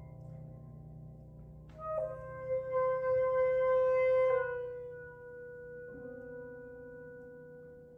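Alto saxophone playing a short note that drops to a long held note, swelling loud and then softening, over a fading low piano chord.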